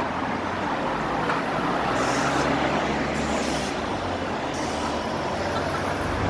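Steady street traffic noise with a bus's engine running close by, and three short hisses about two, three and four and a half seconds in.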